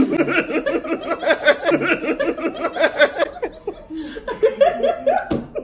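Two women laughing loudly together, a long fit of rapid laughter that eases off about three and a half seconds in and picks up again briefly before the end.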